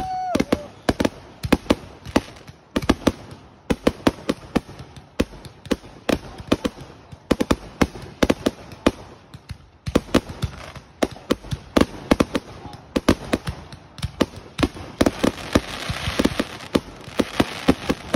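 Aerial fireworks in a finale barrage: a rapid, irregular string of bangs and bursts with hardly a pause. The crackle thickens about three-quarters of the way through.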